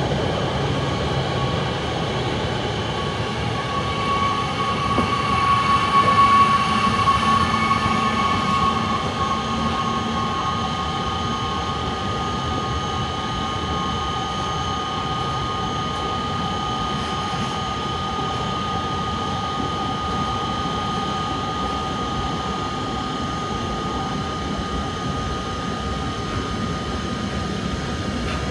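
Freight train rolling through a station: steady rumble of the wagons on the rails with steady high ringing tones over it, loudest about six seconds in.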